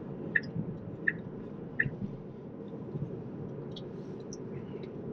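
Tesla Model 3's turn-signal indicator ticking, three more evenly spaced ticks about 0.7 s apart that stop a little under two seconds in, likely as the signal cancels after a lane change. Under it runs steady low tyre and road noise inside the cabin.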